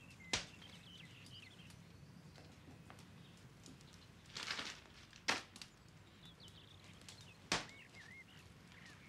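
Quiet room with faint bird chirps and a low steady hum. Three sharp taps come near the start, a little after the middle and near the end. A brief rustle just before the middle fits a small paper packet being picked up.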